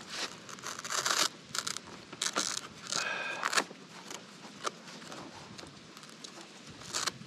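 Hands working a Cardo intercom speaker and its cable into the foam-and-fabric ear pocket of a motorcycle helmet liner: irregular rustling, scraping and small clicks, with a brief squeak about three seconds in.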